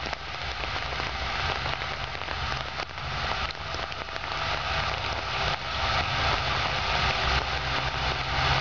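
WDG-4 diesel locomotive, an EMD 16-cylinder two-stroke diesel, approaching under power. Its steady low engine drone grows louder over a dense, even hiss.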